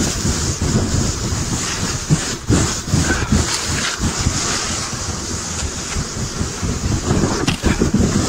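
Kayak hull sliding and scraping down a snow slope: a steady rushing hiss with uneven low rumbling bumps, mixed with wind blowing across the microphone.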